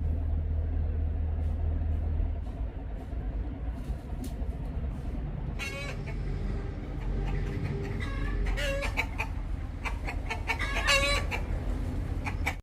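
Chickens clucking and calling, with a run of calls in the second half, over a steady low rumble.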